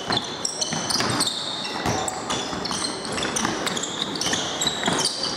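Handball play on a wooden sports-hall floor: sneakers squeaking in short high chirps as players cut and stop, with the ball thudding on the boards a few times.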